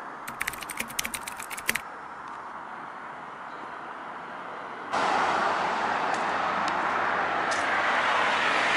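Keyboard typing sound effect: a quick run of key clicks for about two seconds as a caption types out, then low street ambience. About five seconds in it cuts suddenly to louder outdoor street and traffic noise that builds toward the end.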